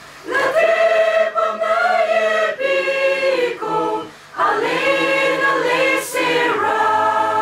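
Youth choir singing in long held phrases, with a short break between phrases about four seconds in.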